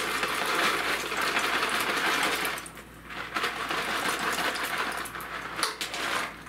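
Stockpot of chicken noodle soup simmering: a dense, rapid crackling rattle that breaks off briefly about two and a half seconds in, resumes, and fades near the end.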